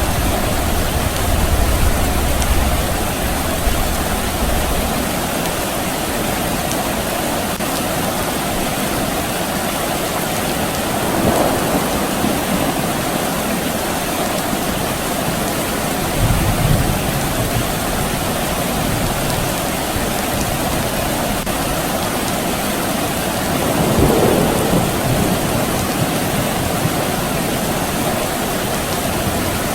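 Steady rain falling, with low rumbles of distant thunder in the first few seconds and again about sixteen seconds in, and brief swells in the downpour around eleven and twenty-four seconds in.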